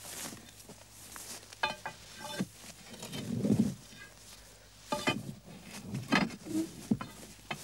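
An iron crowbar working a field stone loose over a fulcrum block. Several short metallic clinks of the bar against the stone, and a heavier low scraping sound about halfway through.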